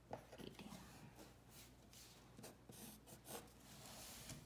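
Faint scratching of handwriting, with a few light taps.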